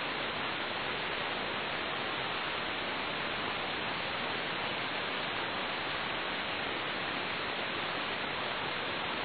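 Steady hiss of aircraft radio static between ATC transmissions on the recorded radio audio.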